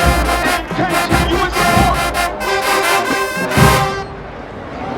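Marching band's brass and drums playing, closing on a loud accented hit about three and a half seconds in; the music then stops, leaving crowd noise.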